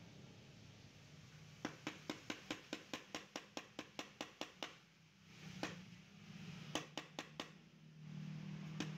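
Light, regular clicking at about six clicks a second for some three seconds, then a few scattered clicks, from a small hand tool working on an in-tank fuel pump and filter assembly. A low hum comes in near the end.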